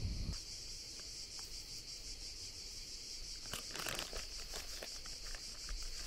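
A steady, high-pitched chorus of insects buzzing with a fast pulse. A short burst of crinkling, crackling clicks comes about halfway through.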